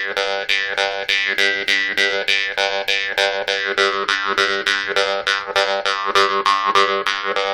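'Scalpel' jaw harp played in a fast, even rhythm of about four plucks a second over a steady drone. A bright overtone melody rides on top and moves lower in the second half as the player's mouth changes shape.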